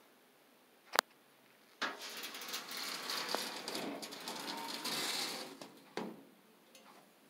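Sliding glass shower door rolling along its metal track as it is pulled shut, a rattling run of a few seconds that ends in a knock as the door closes. A sharp click comes about a second in.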